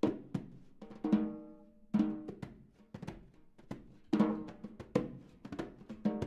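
Modern jazz trio of piano, double bass and drum kit playing: loose, irregular drum and cymbal hits over ringing, decaying chords.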